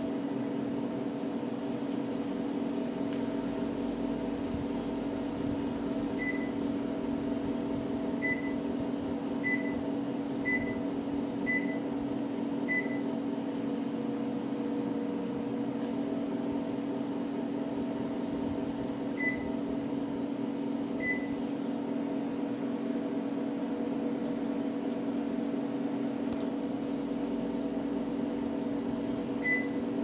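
Panasonic split air conditioner indoor unit running with a steady hum, giving short single high beeps as it takes commands from the remote: six at roughly one-second intervals about six to thirteen seconds in, two more around twenty seconds, and one near the end.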